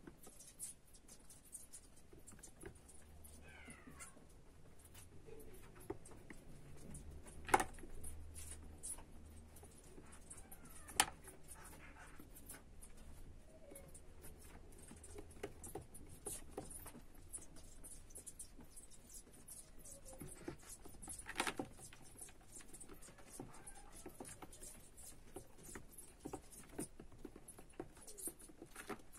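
Hamster's claws pattering and scratching on the floor of a plastic tub, with a few sharper knocks. A couple of faint falling squeaks sound near the start.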